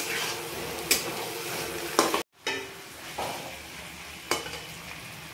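Chicken and potato curry sizzling in a steel kadai as it is stirred, with a few sharp clicks of the spatula against the pan. The sound drops out briefly a little over two seconds in.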